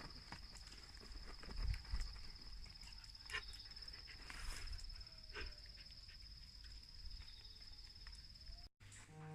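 Quiet outdoor ambience: a steady high-pitched insect trill, scattered taps and clicks, and a faint siren slowly rising and falling. Near the end the sound cuts out and music starts.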